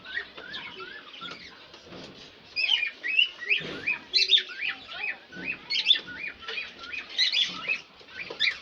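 Many small birds chirping busily together, short quick chirps overlapping throughout, with a couple of dull knocks in the middle.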